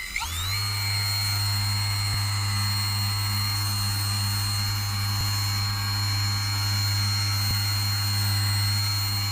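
Handheld electric massager starting up with a quickly rising whine, then running steadily with a low buzz, worked over the back to loosen muscle knots.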